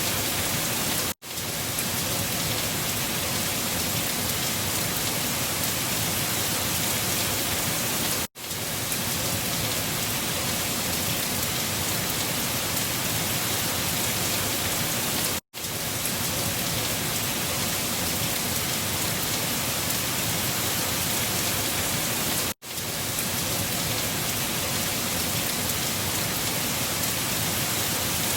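Steady, dense rushing storm noise with no pitch to it, played as a repeating loop. It drops out for an instant about a second in, and again about every seven seconds.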